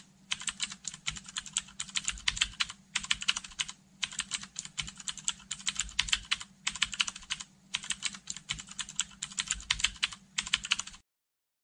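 Rapid computer-keyboard typing clicks, used as a typing sound effect, in runs of a second or two broken by short pauses, stopping abruptly near the end.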